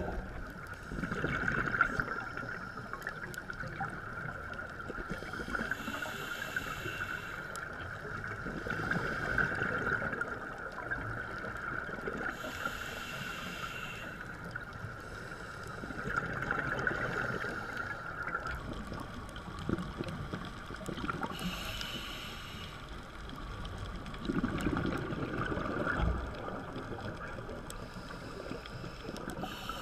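Underwater sound picked up through a diving camera's housing: a scuba diver's regulator breathing, with a hiss of exhaust bubbles about every seven or eight seconds. Under it runs a steady whine that drops in pitch about two-thirds of the way through.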